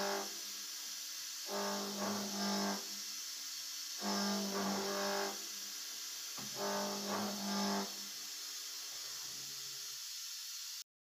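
CNC mill's end mill cutting a half-round groove in a metal block: a pitched hum with overtones comes and goes about every two and a half seconds, each time lasting about a second and a half, over a steady high hiss. The sound cuts off suddenly just before the end.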